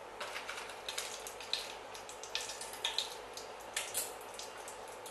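Whole spices (bay leaves, cinnamon, cardamom) sizzling in hot mustard oil in a stainless-steel kadai, a faint steady hiss broken by scattered sharp crackles and pops. This is the tempering (phoron) stage, the spices frying in the oil.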